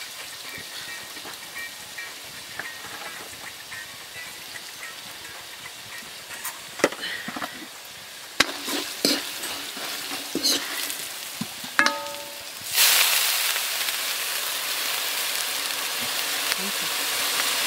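Vegetables frying and crackling in an iron wok, with scattered knocks of a spoon against the pan as spices are stirred in. About thirteen seconds in, water poured into the hot wok sets off a sudden, loud, steady sizzle.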